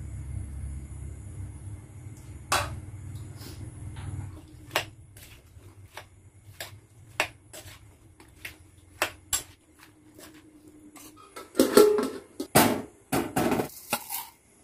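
Metal kitchenware clinking: a spoon and a metal cooking pan knock in scattered single taps as ingredients are mixed by hand in the pan, then a dense metal-on-metal clatter near the end. A low rumble in the background fades out about four seconds in.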